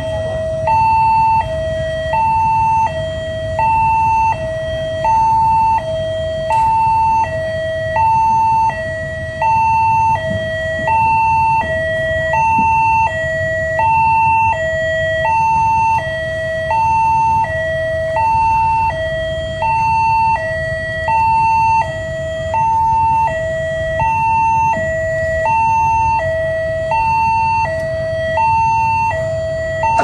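Railway level-crossing warning siren sounding a two-tone hi-lo alarm, switching evenly between a higher and a lower tone about every three-quarters of a second.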